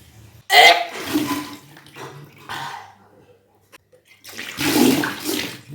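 A person retching and bringing up a stomachful of salt water, which gushes and splashes out in about three bouts, the largest near the end. This is the deliberate induced vomiting of kunjal kriya, the yogic cleansing of the stomach.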